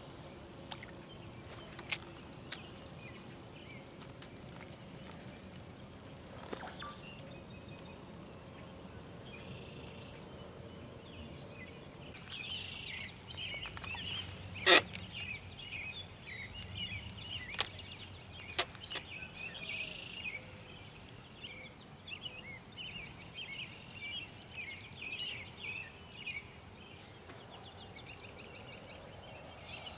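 Quiet outdoor background with birds chirping from about 12 seconds on, and a few sharp clicks, the loudest about 15 seconds in.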